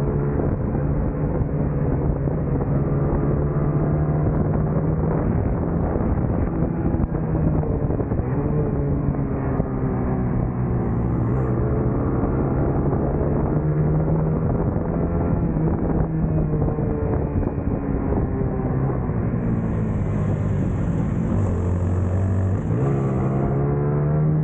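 Engine of a small racing motorcycle heard from on board, its revs rising and falling through the corners. Near the end the note drops lower for a couple of seconds under braking, then climbs back up.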